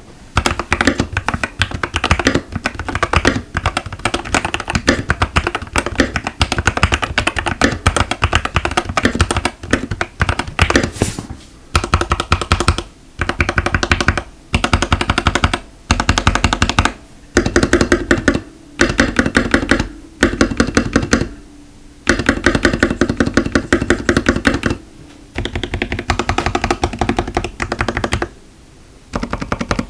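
Typing on an Epomaker TH80 mechanical keyboard with Gateron Pro Red linear switches: fast, continuous keystrokes for the first ten seconds or so, then short bursts of typing with brief pauses between them.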